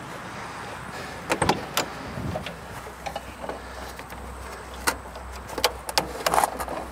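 Scattered clicks and knocks of hands working at an old Volkswagen Beetle's open doors and under its dash, feeling for the hood release latch.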